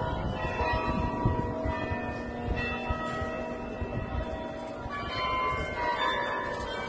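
Slow instrumental background music of held, ringing bell-like tones over a low, noisy wash.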